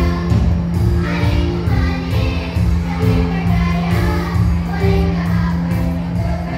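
Children's choir singing in unison over musical accompaniment with a steady low beat and bass.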